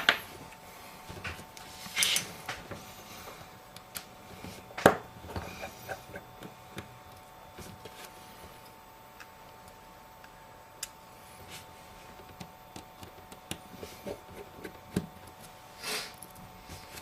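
Scattered small clicks and taps of precision tools and tiny screws on an iPhone's internals while screws are being removed, the sharpest click about five seconds in.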